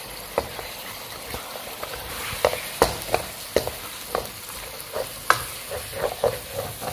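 Minced meat (keema) with onions and tomato paste frying in a deep pan with a steady sizzle. A wooden spatula stirs it, scraping and knocking against the pan in irregular clacks that start about half a second in.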